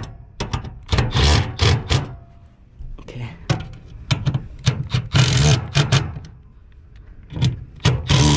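Milwaukee M12 Fuel cordless driver running in about four short bursts of dense clicking as it tightens bolts on a new electric motor's mounting plate and pulley.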